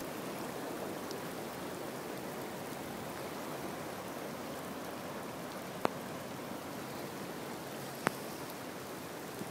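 Floodwater rushing steadily down a swollen, muddy drainage ditch, mixed with falling rain. Two sharp clicks, one about six seconds in and one about eight seconds in.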